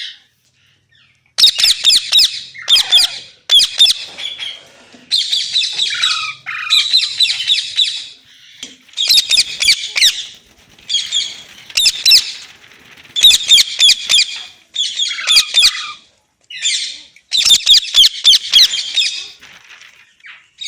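Pet rose-ringed parakeet screeching loudly over and over: about a dozen harsh calls, each about a second long, with short pauses between them, some trailing off in a falling note.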